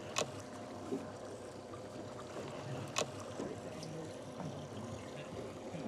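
Fishing boat under way at sea: a steady motor hum and water rushing along the hull. Two short sharp knocks, about a fifth of a second in and about three seconds in.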